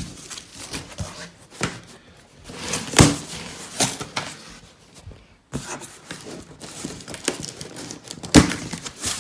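Cardboard flaps of a boiler box being pulled open by hand and the plastic bags of fittings inside crinkling, with irregular scraping and rustling and a few sharper knocks, loudest about three seconds in and again near the end.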